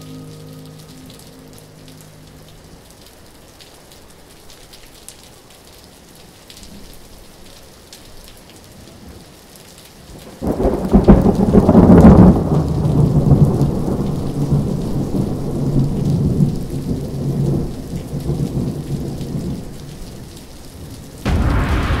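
Soft rain-like hiss, then about ten seconds in a sudden loud, deep thunder-like rumble that swells for a couple of seconds and slowly dies away; another loud rumble starts near the end.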